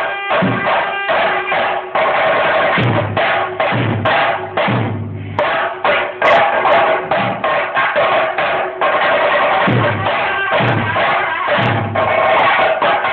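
Ritual drumming: dense, rapid drum strokes, with heavier deep strokes at irregular gaps of about a second, typical of the chenda drums that accompany a Muthappan performance.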